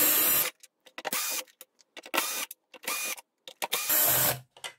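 Power screwdriver motor run in five short bursts about a second apart, each with a faint whine, backing the screws out of the vacuum cleaner's plastic airflow control housing.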